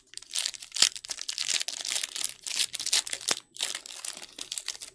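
Foil wrapper of a 2023 Panini Legacy Football hobby pack crinkling and tearing as it is ripped open and handled, with two sharp snaps.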